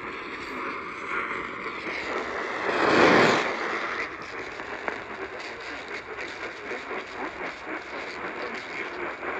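AM radio reception noise: a steady hiss and crackle of static, with one loud burst of static lasting about a second, about three seconds in.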